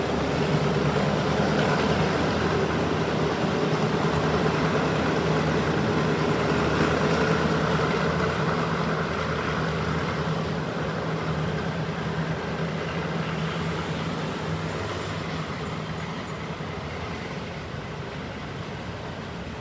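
Alsthom AD24C diesel-electric locomotive with its MTU 16V4000 V16 diesel engine running under power as the train pulls away, the engine's steady hum fading gradually over the second half along with the rolling noise of the train.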